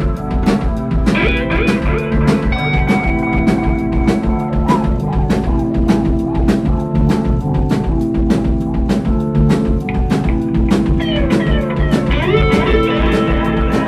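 Live rock band playing an instrumental break: electric guitar and bass over a steady drum-kit beat.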